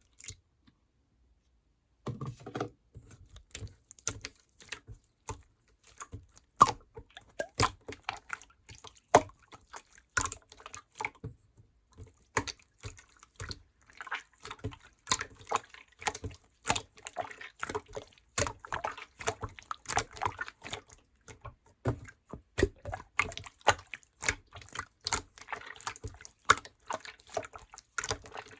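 Juicy peach being handled: an irregular run of small wet clicks, ticks and drips that starts about two seconds in.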